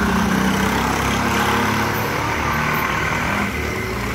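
Motor vehicle engine running close by on the road, a steady low hum over general street noise.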